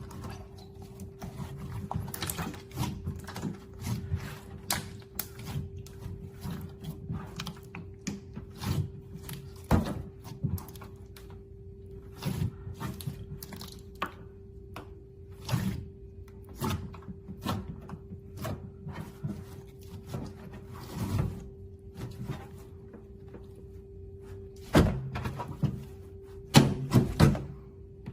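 Clear slime being pressed, poked and squished by hand, making irregular sticky clicks and pops, with a few louder ones near the end. A steady low hum runs underneath.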